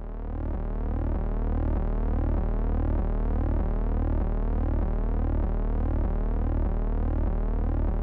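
Background ambient synthesizer music: a deep, steady drone pulsing about twice a second, under repeating sweeping tones.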